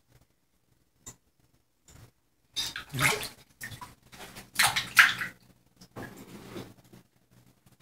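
Water splashing and sloshing in a bathroom sink as a razor is swished through it to rinse it, in two main bursts about two seconds apart, with smaller splashes after.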